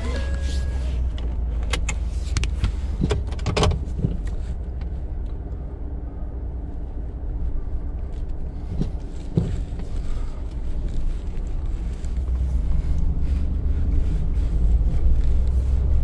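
Steady low rumble of a Ford pickup on the move, heard inside the cab, with a few short knocks or clicks a couple of seconds in and again about three and a half seconds in.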